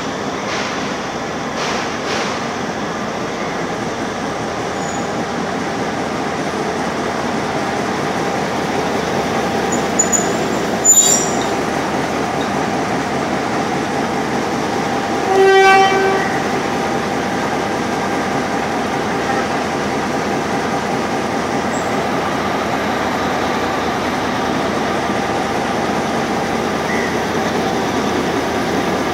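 Class M6 diesel locomotive running slowly with a steady engine drone as it is brought up to couple onto the train. There is a sharp clank about ten seconds in, and a short horn blast of about a second around halfway through.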